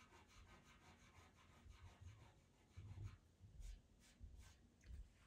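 Faint scratching of a pastel pencil on pastel mat paper: a run of short, quick strokes, with a few soft low bumps.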